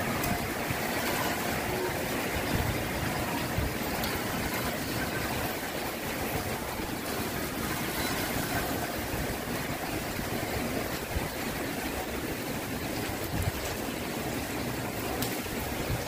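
Heavy rain pouring down in a steady hiss, with strong wind gusting and buffeting the microphone in uneven low rumbles.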